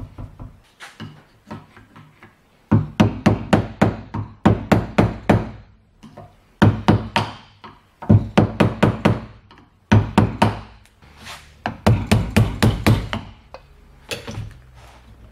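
Hammer tapping in quick runs of about four to five blows a second on a battery master switch clamped in a vise, bending back the crimped ring of its housing to open it. The first couple of seconds hold only a few light knocks.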